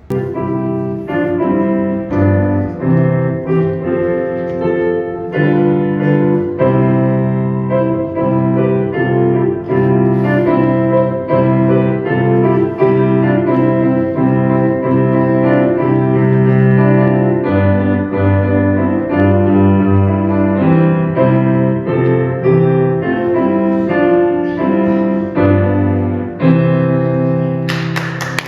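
Piano being played solo, a piece of sustained chords under a melody line. Applause breaks out near the end as the piece finishes.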